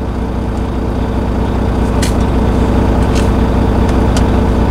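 Volvo VNL semi truck's diesel engine idling with a steady low rumble, ready for a parked DPF regeneration. A few faint short clicks sound over it.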